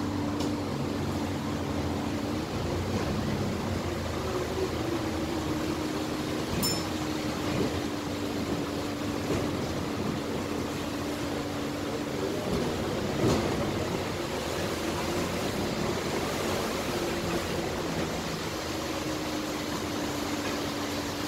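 Inside an Alexander Dennis Enviro400 hybrid double-decker bus on the move: a steady drivetrain hum and road noise. A steady mid-pitched whine comes and goes, heard at the start, for several seconds in the middle and again near the end.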